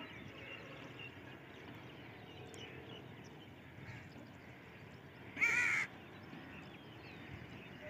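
A single short bird call, about five seconds in, over faint steady background noise.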